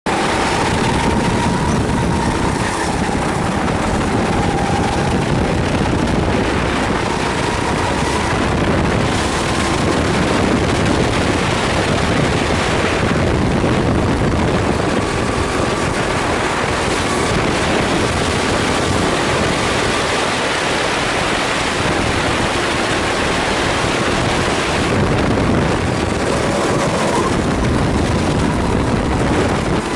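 Onboard a Sodi rental kart on a hot lap: the kart's engine running hard, its pitch drifting up and down with speed through the corners, under a heavy rush of wind and road noise on the camera microphone.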